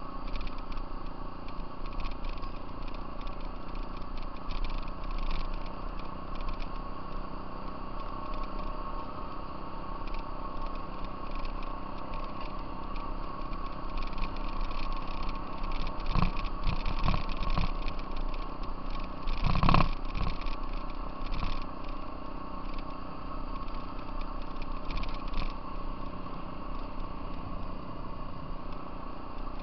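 Off-road vehicle engine running at a steady cruise along a gravel trail, with rattles. There is a cluster of knocks a little past the middle and a louder thump about two-thirds of the way through, as the vehicle hits bumps.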